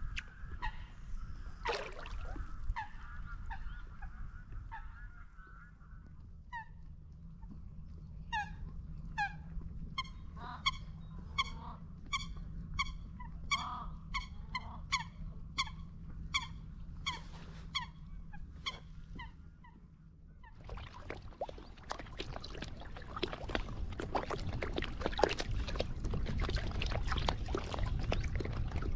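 Geese honking: a long run of short honks, about two a second. About twenty seconds in, the honking stops and a rough, crackling water-splashing noise takes over.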